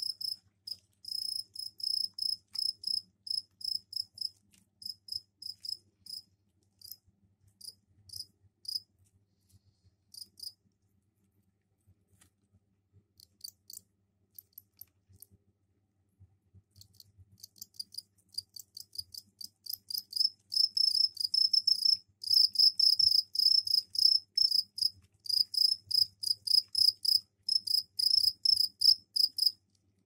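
Male two-spotted crickets chirping: a run of short, high chirps from several insects, made by rubbing the forewings together as a mating call to females. The chirping thins out and falls almost silent for a few seconds around the middle, then comes back denser and louder through the second half.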